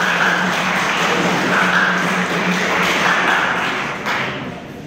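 Audience applauding with many hands clapping, dying away about four seconds in.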